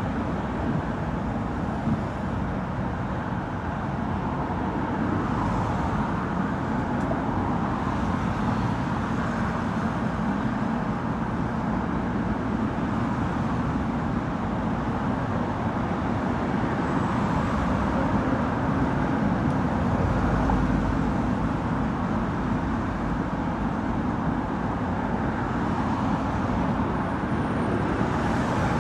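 Dense multi-lane expressway traffic: a steady wash of tyre and engine noise from many cars passing below, swelling slightly about two-thirds of the way through.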